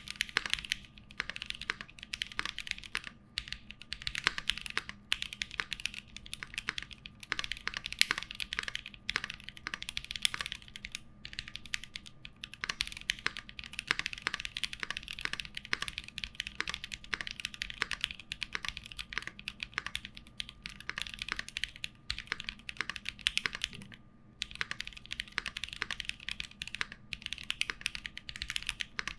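Typing on a mechanical keyboard fitted with Tecsee Kingfisher PME linear switches, lubed and filmed: a fast, steady stream of key presses with a couple of short pauses.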